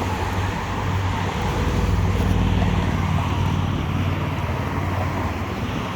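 Road traffic on a busy street: a motor vehicle passing, its engine hum and tyre noise swelling to their loudest a couple of seconds in, then easing off.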